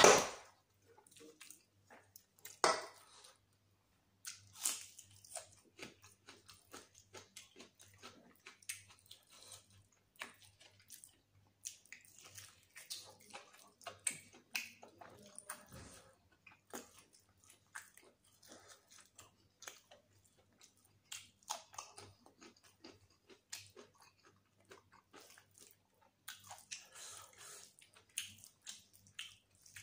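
Close-miked chewing of mutton biryani and mutton curry: an irregular stream of wet smacks and mouth clicks, with a louder knock at the start and another about three seconds in.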